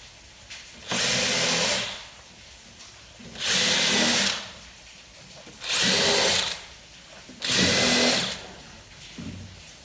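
DeWalt 20V XR cordless hammer drill/driver run in four short bursts, each under a second and about two seconds apart, boring holes into wood, with a steady high motor whine in each burst.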